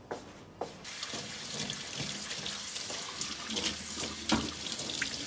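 Kitchen faucet running into a stainless steel sink as a cat's food bowl is rinsed and rubbed clean by hand under the stream. The water comes on about a second in, with a few knocks along the way.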